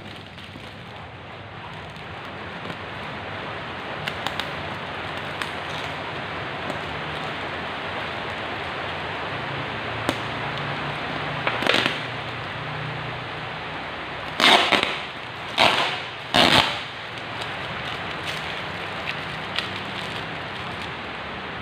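A tape-wrapped plastic parcel being opened by hand: a steady crinkling hiss of plastic and tape handling, with three loud rips of packing tape being pulled off about two thirds of the way through.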